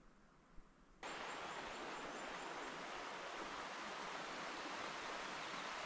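Steady rushing of stream water that starts abruptly about a second in, an even rush with no rhythm or pitch.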